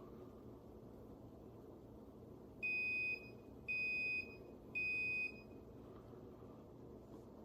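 Geek Chef espresso machine's electronic beeper sounding three even, high-pitched beeps, each about half a second long and about a second apart.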